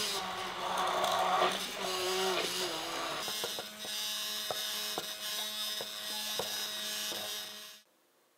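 Immersion (stick) blender running in a glass bowl of chocolate cheesecake batter. Its motor hum dips in pitch now and then as the batter loads the blade, and a few sharp clicks come in the second half. The sound cuts off suddenly near the end.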